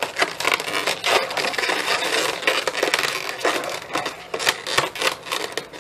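Inflated latex twisting balloons rubbing and scraping against each other as they are handled and wrapped, a dense run of rapid scratchy rubs.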